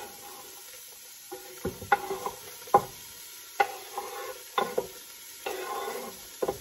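Chopped onions sizzling as they drop into hot olive oil in a cast-iron casserole, with a series of short scrapes and knocks as the back of a knife pushes them across a wooden chopping board.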